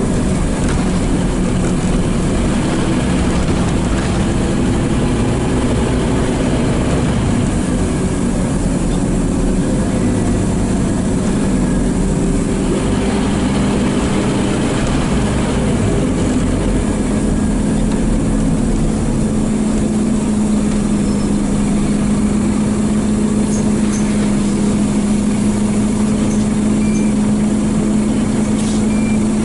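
Scania N230UD bus's five-cylinder diesel engine running, heard from inside the passenger saloon as a steady drone whose pitch rises slightly about two-thirds of the way through.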